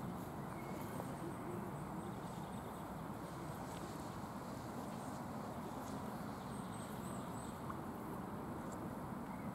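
Steady outdoor ambience: an even, low rumbling background noise.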